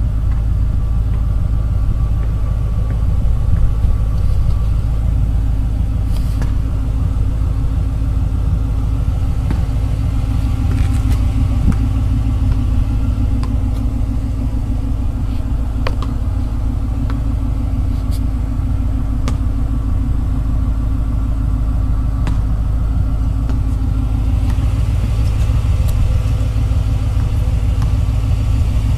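2010 Ford Mustang GT's 4.6-litre V8 idling steadily through a Flowmaster American Thunder exhaust, a deep even rumble heard from inside the cabin.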